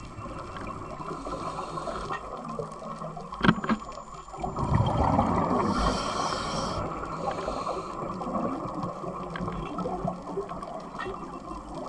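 Underwater ambience heard through a camera's waterproof housing: a steady hiss and rumble, a sharp click a few seconds in, and a louder bubbling rush about halfway through.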